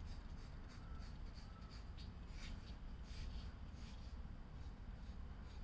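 Pencil drawing straight lines on paper: a series of short, faint scratching strokes over a low steady hum.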